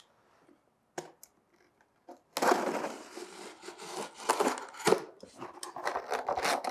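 A blade slicing the packing tape on a cardboard box, with the cardboard and its molded pulp insert scraping and rustling as they are handled. After one click and a near-silent start, a dense scratchy noise full of small clicks begins about two seconds in.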